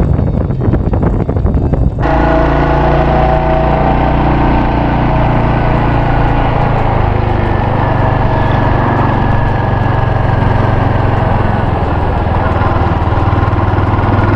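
Royal Enfield Hunter 350's single-cylinder engine running at steady revs, heard under wind noise on the microphone for the first two seconds, then, after an abrupt change about two seconds in, as a clearer, even engine note.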